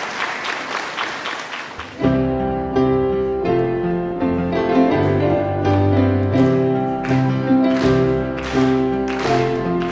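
Applause tailing off, then about two seconds in an instrumental introduction starts abruptly: keyboard music with held chords and a bass line, joined later by a steady beat about twice a second, opening a Romanian folk-song arrangement before the singing comes in.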